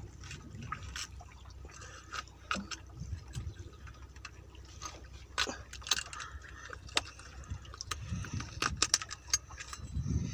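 Scattered small clicks and scrapes as a metal T-handled dehooking rod works a hook out of a diamond trevally's mouth, over a steady low rumble of the boat on the water. The clicks come thicker near the end.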